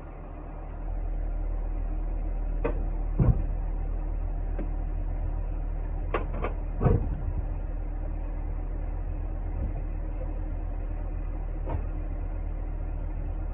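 A Honda car running with a steady low hum that builds up over the first second and then holds, with a few sharp knocks and clicks, the loudest about three and seven seconds in.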